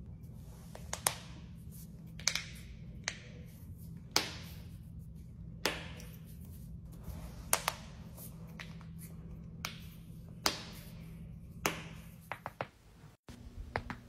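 Human joints cracking: about ten sharp single pops spaced one to two seconds apart, from a back-and-shoulder stretch and from knuckles cracked by pressing interlocked fingers, then a quick run of smaller clicks near the end.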